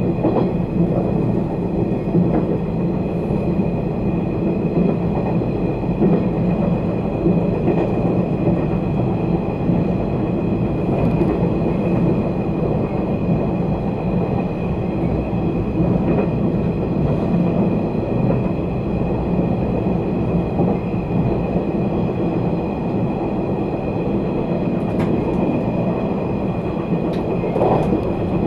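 Running noise of a 485 series 3000 subseries electric train at speed, heard inside the passenger car: a steady rumble of wheels on rail with a faint steady high tone. A couple of light clicks come near the end.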